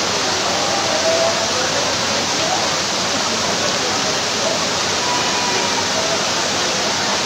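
Heavy rain with a torrent of floodwater rushing across paved ground, a loud, steady rush of water.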